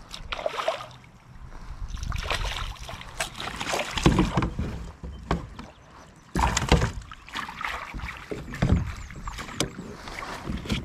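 Irregular water splashing and knocks around a kayak as a hooked smallmouth bass is fought at the surface, loudest about four and six seconds in.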